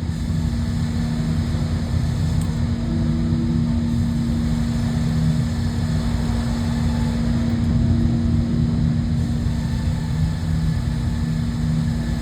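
Sawmill running steadily under load, its engine humming as the saw makes a pass through a cherry log.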